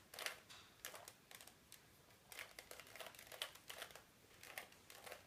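Faint, irregular plastic clicking of a Rubik's cube as its faces are turned by hand, several clicks a second in short runs.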